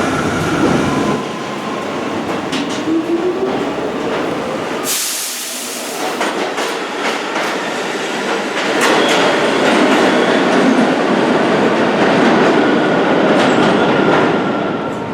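New York City subway train running through the station, its wheels clicking over the rail joints amid a steady rumble, with a short upward whine from the motors around the third second.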